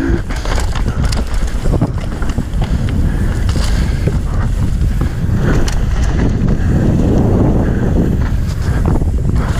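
Wind buffeting a helmet-mounted camera's microphone during a fast mountain-bike descent, mixed with the rumble of tyres on a dirt trail and scattered knocks and rattles from the bike.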